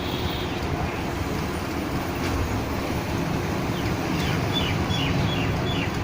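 Steady background road-traffic noise, with a bird chirping a quick run of short falling notes about four seconds in.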